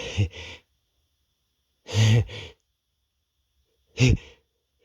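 A man's gasping, voiced breaths as a sneeze builds from a tickling nose: three short ones about two seconds apart.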